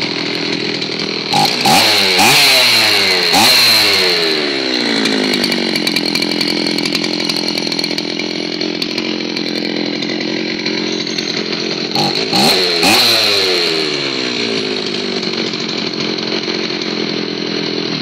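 Zenoah two-stroke chainsaw engine idling steadily, given quick throttle blips twice, about a second in and again about twelve seconds in, each time sweeping up in pitch and settling back to idle. The idle speed, set too high, is being adjusted at the carburetor.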